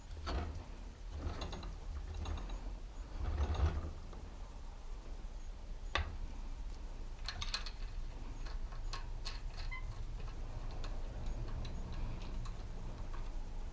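Metal-on-metal scraping and rubbing, then a sharp click about six seconds in and a run of light, irregular clicks and taps, as a motorcycle fork stanchion is worked into its yokes.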